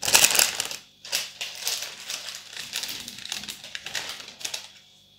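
Crinkly cellophane wrapping being handled and pulled off, a run of dense crackling and rustling. The loudest burst comes at the start, there is a short pause about a second in, and the crackling fades out shortly before the end.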